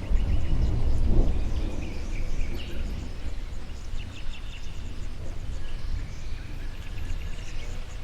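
Songbirds chirping and calling over a low outdoor rumble that is strongest in the first couple of seconds and then eases.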